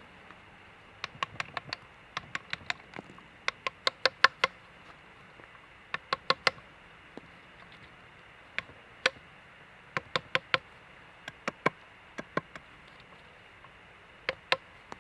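Sharp, slightly ringing knocks of a hand tool striking wood, coming in quick runs of two to five blows with short pauses between runs.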